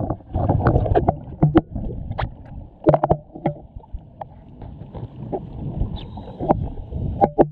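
Underwater sound of a scuba diver's exhaled bubbles from the regulator: a muffled, low bubbling rumble that comes in bursts, heaviest in the first second and a half and again about three seconds in. Scattered sharp clicks run through it.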